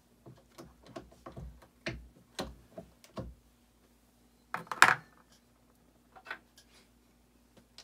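Brass rifle cartridge cases and reloading tools being handled while charging powder: a string of light clicks and knocks, then one brief louder rustle a little past halfway, and a few faint clicks after it.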